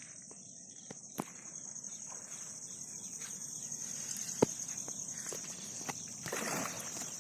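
Insects chirring in a steady high-pitched drone, with scattered sharp clicks and knocks, the loudest about four seconds in, and a short rustle near the end.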